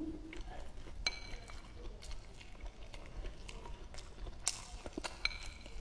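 Wooden chopsticks tapping and scraping in a ceramic rice bowl, with scattered light clicks and two brief ringing clinks, about a second in and near the end.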